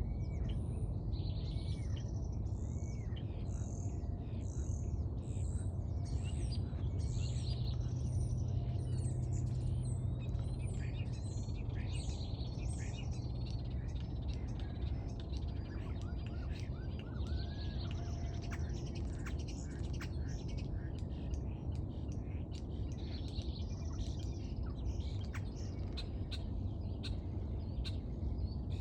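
Many birds chirping and calling at once: quick, high chirps and short rising-and-falling calls overlapping throughout, over a steady low rumble.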